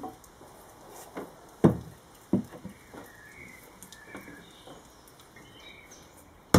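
Hammer blows on wooden stakes being driven along a canoe building bed to hold the plywood hull sides bent upright: a few sharp wooden knocks, the two loudest close together about two seconds in, with lighter taps and handling noise between, and another hard knock at the very end.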